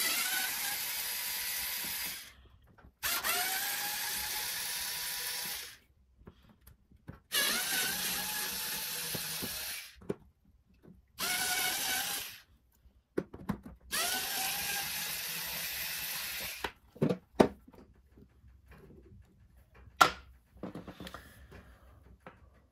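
Small cordless electric screwdriver running in reverse in five bursts of one and a half to three seconds, each starting with a rising whine as the motor spins up, backing screws out of a plastic tool housing. A few sharp clicks follow near the end.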